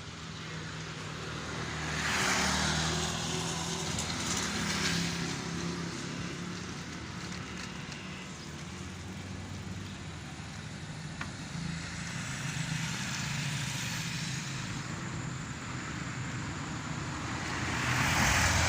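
Road traffic: motor vehicles going by with a steady engine hum and road noise, swelling louder about two seconds in and again near the end as vehicles pass.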